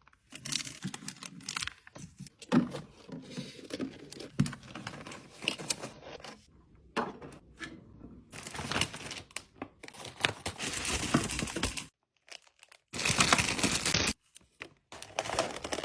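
Plastic snack packaging crinkling and tearing, with sharp clicks and knocks as packs and containers are handled, in short irregular bursts with abrupt cuts between them.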